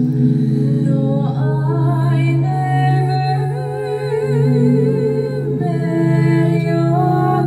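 Ambient trance song: a steady low drone under a woman's voice singing a slow, drawn-out melody with wide vibrato, entering about a second in.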